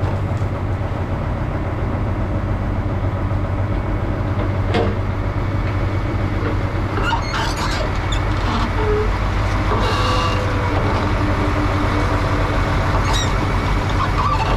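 A heavy engine running steadily with a low hum, with a few short knocks and clanks over it.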